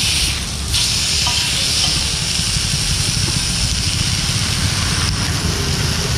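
Whole fish sizzling on a large flat iron griddle over a coal and wood fire, a steady hiss over a low rumble. The sizzle drops briefly about half a second in as the fish is lifted on a metal spatula and laid back down on the iron.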